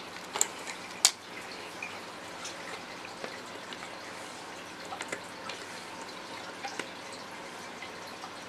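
Two sharp clicks of hand crimping pliers just under half a second and about a second in, then scattered small clicks as insulated spade connectors are handled and pushed onto the terminals of a row of switches.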